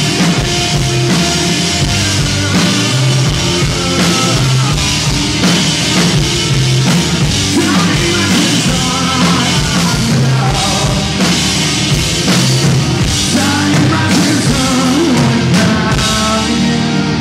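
Live rock band playing loud and steady: electric guitars and a drum kit.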